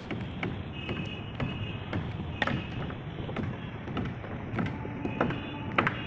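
A run of short, sharp taps or knocks, irregular at roughly two a second, over a steady low background noise.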